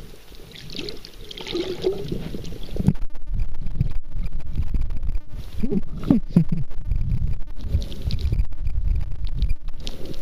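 Underwater noise from a camera held just below the surface: a steady low rumble of moving water with gurgles and bubbles, and many small clicks from about three seconds on.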